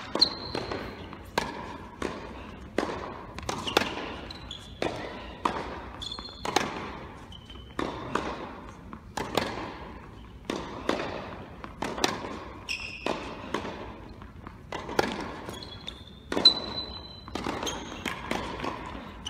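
Tennis rally on an indoor hard court: the ball popping off racket strings and bouncing on the court about every two-thirds of a second, each hit echoing in the hall. Brief high squeaks of shoes on the court come between some of the shots.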